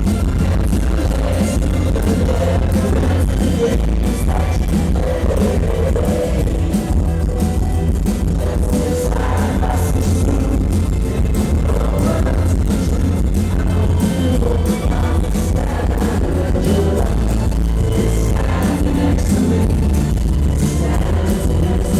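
Live rock band playing, with two male voices singing together over drums and a heavy, steady bass, loud as heard from the audience.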